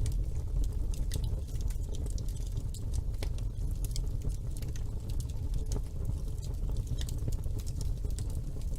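Wood fire burning in a fireplace, crackling with many quick irregular pops over a steady low rumble of the flames.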